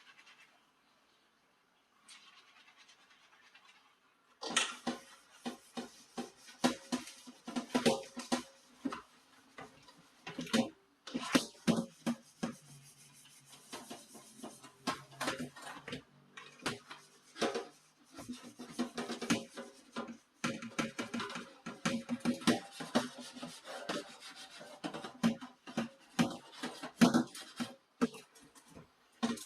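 Dishes being washed by hand: irregular clinks and knocks of crockery and utensils against each other and the sink, starting about four seconds in and going on busily.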